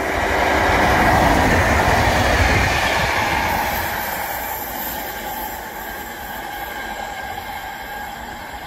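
A short passenger multiple-unit train passes close by along the platform. Its rumble and wheel noise rise to a peak about a second in, then fade as it draws away. A steady wheel squeal comes in as it goes into the curve.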